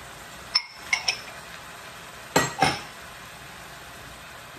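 A glass bowl clinks sharply against a stainless steel pan five times, three near the start and two about halfway, as onions and bean sprouts are tipped into the pan. Under the clinks runs a steady low sizzle of the vegetables cooking.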